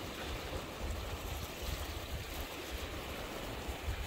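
Gusty wind on the microphone, an uneven low rumble, over a steady hiss of beach surf.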